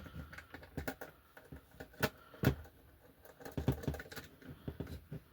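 Irregular small clicks and taps from handling an Xbox 360 E disc drive's plastic and metal parts and screws during disassembly, the loudest about two seconds in and a cluster near four seconds.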